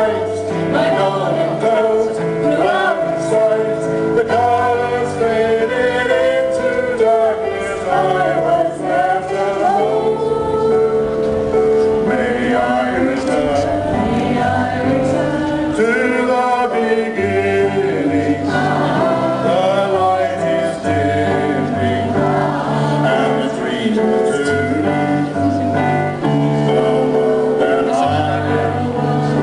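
Live amplified performance of a musical-theatre song: a woman and a man singing into microphones over keyboard accompaniment with a steady bass line.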